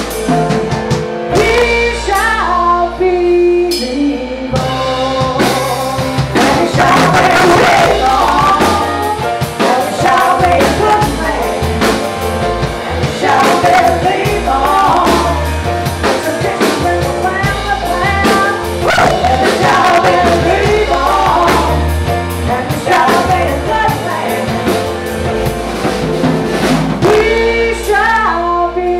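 A live rock band playing: women singing at their microphones over electric guitar, bass and a drum kit.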